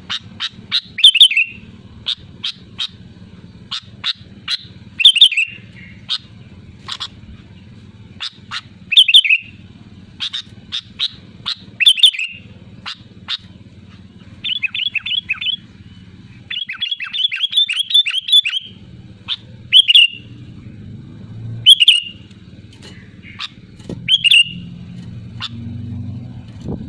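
Sooty-headed bulbul (kutilang) calling loudly: short, sharp, falling notes in quick phrases every couple of seconds, with two faster chattering runs midway. A steady low hum runs underneath.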